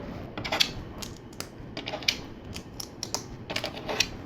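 LEGO plastic pieces clicking and clattering in the hands as a pontoon is fitted and pressed onto the plane: a string of irregular small clicks.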